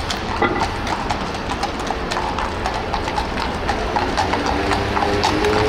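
Quick, irregular clip-clopping steps on a hard street, several a second, over a steady low street rumble. A few held tones come in near the end.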